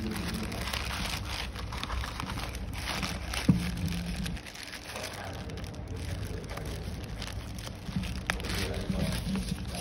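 Thin black plastic bag and wrapping crinkling and rustling as they are handled and pulled open, with a sharp knock about three and a half seconds in.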